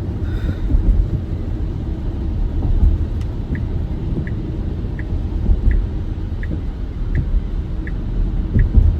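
Car interior noise while driving in heavy rain: a steady low rumble of road and engine. From about three and a half seconds in, a short high tick repeats about 1.4 times a second, the turn-signal indicator.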